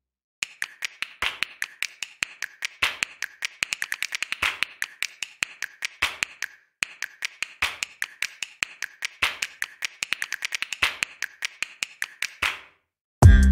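Camel oil pastel scraping over sketchbook paper in quick back-and-forth shading strokes: a dense run of dry clicks and scratches that pauses briefly about halfway. Loud electronic music cuts in suddenly near the end.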